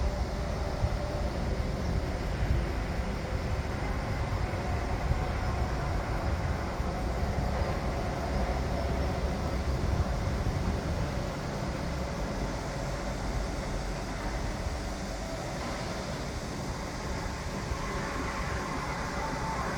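Construction site noise: heavy machinery running with a steady deep rumble and a few irregular knocks, easing slightly about halfway through.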